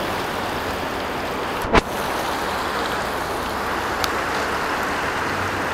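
Fast river current rushing over rocks as a steady wash of water noise, with one sharp knock a little under two seconds in.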